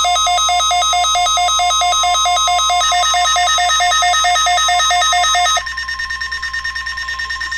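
Weather radio alarm beeping rapidly, about seven beeps a second, over the steady NOAA Weather Radio 1050 Hz warning alarm tone. The beeping stops about five and a half seconds in, and the steady alarm tone goes on alone.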